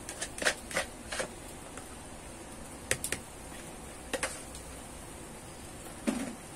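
Wood fire crackling under the cooking pot: irregular sharp pops and snaps, several in quick succession in the first second, then a few more spread out.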